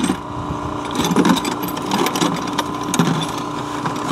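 A steady engine hum with scattered clicks and knocks.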